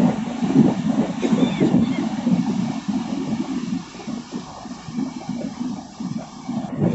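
A passenger train running along the track, heard from an open coach doorway: a steady rumble and rattle from the wheels and coach, easing somewhat after about four seconds, with a single knock near the end.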